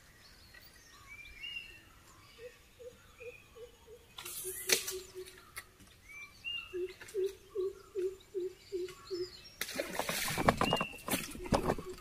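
Riverside birdsong: small birds chirping, and a deep hooting call repeated in quick runs of five or six notes, twice. A short swish with a click comes about four seconds in, and a louder rough burst of noise near the end.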